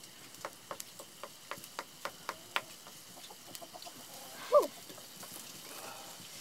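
Wood fire crackling, with a run of sharp pops, then one short cry that falls in pitch about four and a half seconds in and is the loudest sound.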